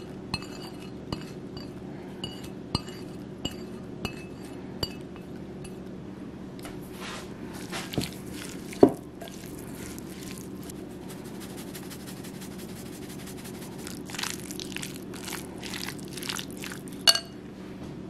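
Light clinks against a glass bowl, about one every two-thirds of a second, as chopped scallions and garlic are scraped in off a plate. Then comes the scrape and clatter of chopsticks mixing a chopped shrimp filling in the glass bowl, with a louder knock about nine seconds in and again near the end. A steady low hum runs underneath.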